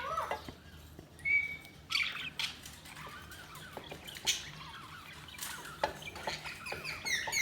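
Budgerigars chirping in short, scattered calls and quick pitch glides, with a busier run of chirps near the end.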